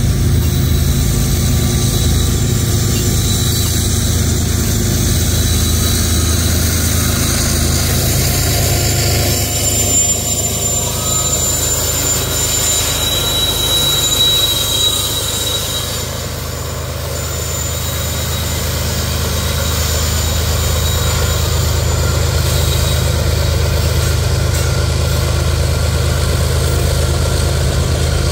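Freight train of tank cars rolling past with a thin, steady wheel squeal over the rails, under the low running of a mid-train diesel locomotive (distributed power unit) going by.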